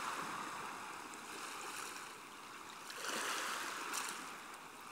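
Water splashing and lapping around a swimmer towing a floating pontoon through a canal, a soft rushing that swells about three seconds in.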